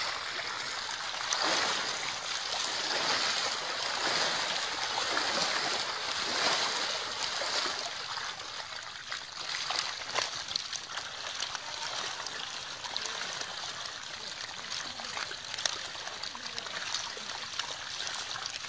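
Water splashing and trickling as a heap of live fish thrashes in a wet cast net, with many small wet slaps and patters over a steady running-water hiss.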